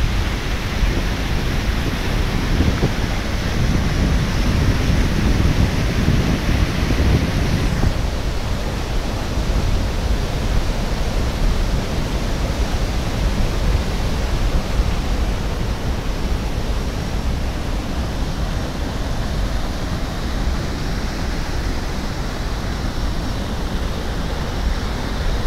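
Steady rushing of a large waterfall, the river surging over its lip and plunging down the cliff. It is heavier and lower in the first eight seconds or so.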